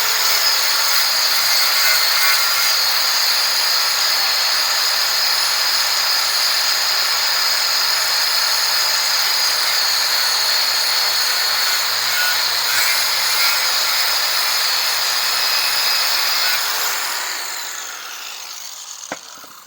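Corded 4.5-inch angle grinder fitted with a polycarbide abrasive wheel, running at full speed with a steady high whine as it strips rust from steel down to bare metal. About 17 seconds in it is switched off and winds down.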